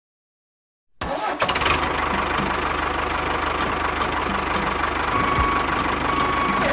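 An engine sound starts abruptly about a second in and runs steadily with a fast rattling beat.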